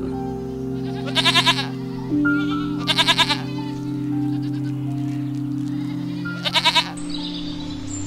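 Young goat (kid) bleating three times, each bleat a short quavering call, over soft ambient synth music.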